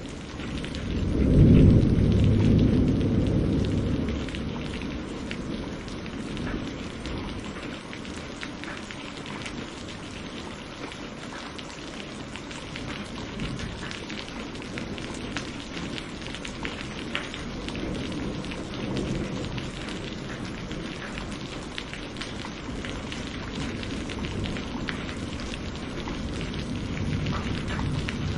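Steady rain falling, with many small drop ticks. A loud roll of thunder rumbles about a second in and fades over a few seconds, and fainter distant rumbles come later.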